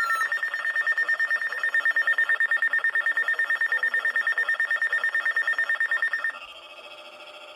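Weather alert radio sounding its electronic alarm: a loud, high, rapidly pulsing beep tone that switches about six seconds in to a quieter, different pulsing tone.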